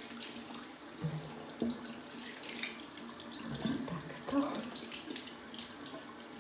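Tap water running into a bathroom sink, with irregular splashing as a face is rinsed by hand to wash off cleansing cream.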